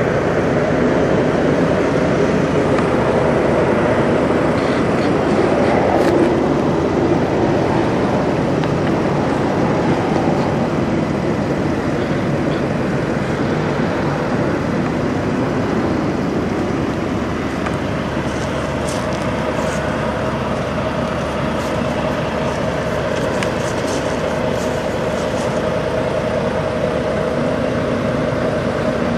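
Semi truck's diesel engine idling with a steady, continuous drone.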